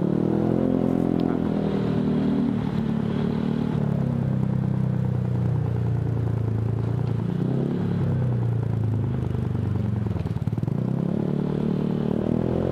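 Honda Vario 150 scooter's single-cylinder engine running through an F2Racing CL.LONG full-system stainless exhaust while riding, the revs rising and easing off about three times. The exhaust note is a soft, deep bass, not very loud.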